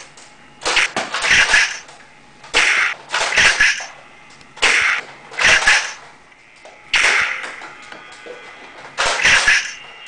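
Nerf blasters firing a string of quick shots, each a short sharp whoosh-crack. The shots come mostly in pairs about half a second apart, and a new pair comes every second or two.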